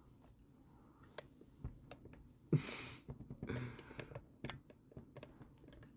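Faint handling noise of a phone held close to the face: scattered light clicks and rubs, with one short rushing, breathy burst about two and a half seconds in.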